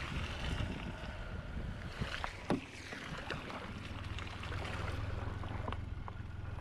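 Wind buffeting the microphone in a steady low rumble, over the wash of surf on a beach, with a few light knocks, the sharpest about two and a half seconds in.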